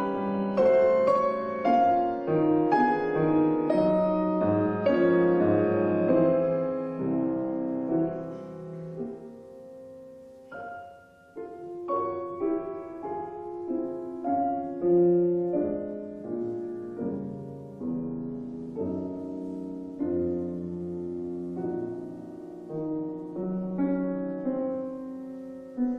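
Solo piano played live on an 1864 Julius Blüthner grand: slow, gentle playing that dies down to a soft pause about ten seconds in, then continues more quietly.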